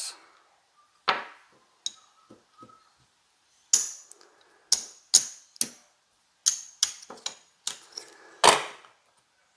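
Casino chips clacking together as they are picked up, stacked and set down on a craps layout to press bets: about a dozen sharp, irregular clacks, several with a brief high ring.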